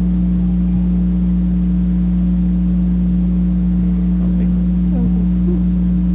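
Loud, steady electrical mains hum from the church's sound system: a low buzz of one unchanging pitch with its overtones, typical of a grounding fault or an open microphone line.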